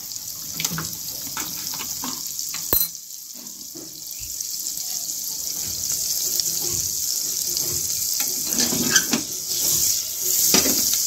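Butter sizzling and foaming in a hot pressure cooker, a steady frying hiss with irregular crackle, and one sharp click about three seconds in.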